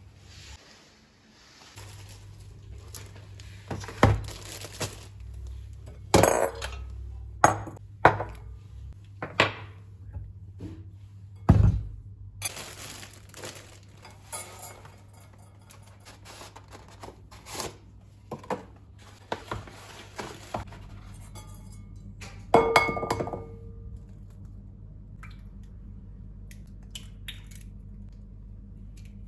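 Kitchen clatter of a glass mixing bowl, a metal wire whisk and jars and bottles being handled on a granite counter: irregular clinks and knocks, the loudest a ringing clink a little after the middle, over a steady low hum.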